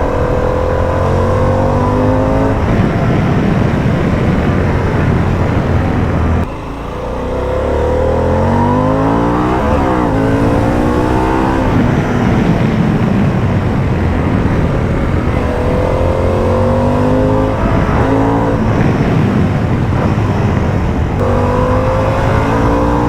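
Harley-Davidson Pan America's Revolution Max 1250 V-twin running on the move, its pitch climbing again and again as it pulls through the gears, with brief breaks at the shifts. About six and a half seconds in the throttle closes sharply and the revs fall, then climb again.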